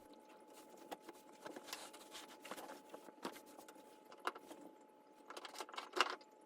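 Faint handling noise: scattered clicks, taps and rustles, busiest near the end, over a faint steady hum.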